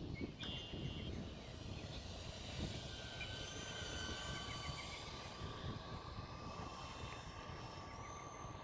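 Electric motors and propellers of an Avios C-130 RC model airplane whining, several thin tones that drift slightly in pitch, over a gusty rumble of wind on the microphone.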